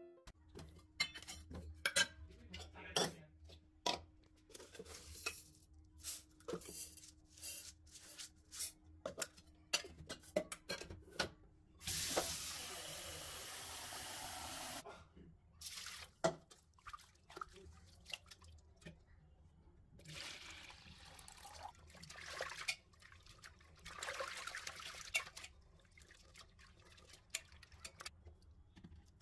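Rice being washed by hand in a steel pot: clinks and knocks of the metal vessel at first, then tap water running into the pot for about three seconds. After that come quieter spells of hands swishing and rubbing the rice in the water.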